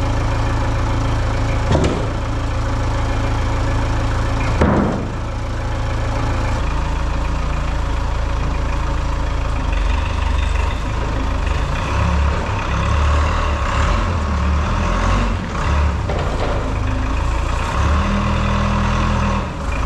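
Portable band sawmill running steadily, its engine sawing a hard maple log, with a couple of brief knocks in the first five seconds.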